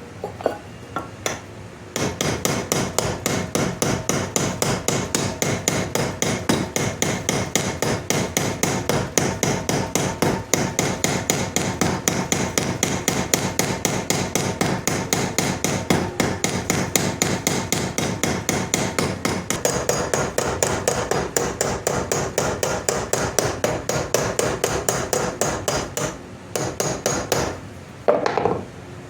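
Small hammer tapping rapidly and steadily on metal, peening over the pins of a knife handle, each blow ringing. The tapping starts about two seconds in, pauses briefly near the end, then a few more blows follow.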